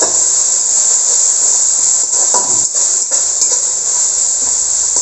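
Chopped onions and ginger-garlic paste sizzling steadily in hot oil in a metal kadai as they are sautéed, with a spatula scraping and stirring against the pan a few times around the middle.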